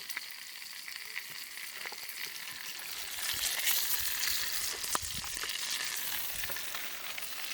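Bacon frying in a pan over a charcoal fire: a steady sizzle with small crackles, growing louder about three seconds in.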